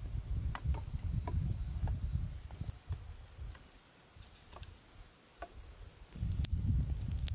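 Insects calling steadily in a high-pitched drone, with a low rumbling noise underneath that fades about three seconds in and comes back near the end, and scattered light clicks.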